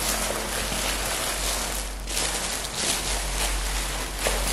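Thin plastic carrier bag crinkling and rustling continuously as a paper-wrapped food parcel is worked out of it, with a brief lull about two seconds in.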